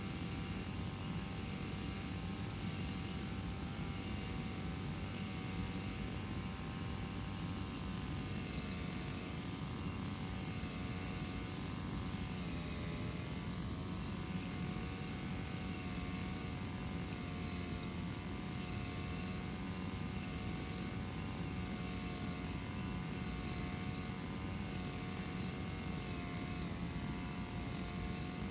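Small engine of a brush cutter running steadily while cutting grass, its pitch wavering a little as the blade takes the load.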